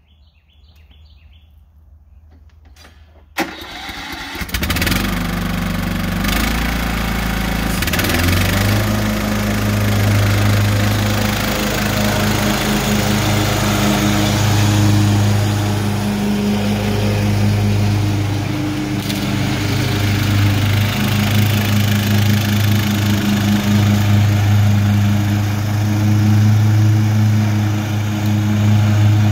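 Cub Cadet LT1042 riding lawn mower's engine starting suddenly a little over three seconds in, running unevenly for a few seconds, then running steadily as the mower drives.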